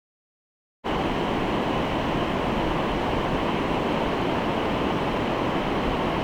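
Steady rushing of river water, a constant even noise that cuts in abruptly about a second in after dead silence.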